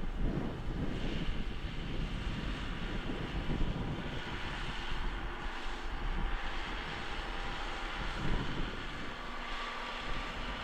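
John Deere 6150 tractor's engine running steadily under load as it pulls a five-furrow plough.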